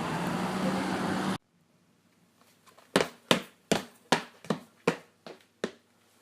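A steady noisy rush that cuts off abruptly about a second and a half in, then, after a pause, a run of about eight sharp knocks at an even pace of roughly two and a half a second, the last few fainter.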